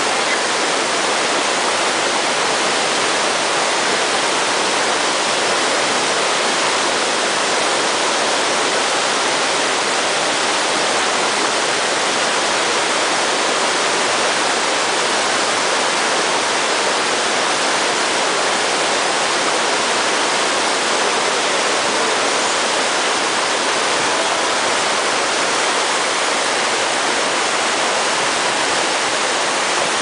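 Waterfall rushing down steep rock slabs into a pool: a loud, steady sound of white water, unchanging throughout.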